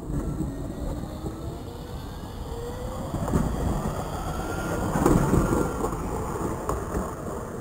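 Nottingham Bombardier Incentro tram pulling away past close by. Its electric traction motors whine, rising in pitch as it gathers speed, over the rumble of its wheels on the rails. It is loudest about five seconds in as the rear of the tram goes by.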